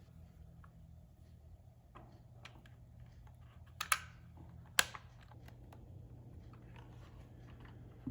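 Keychron K2 mechanical keyboard with Gateron red switches, keys being pressed in an irregular scatter of clicks, with two much louder clacks about four and five seconds in.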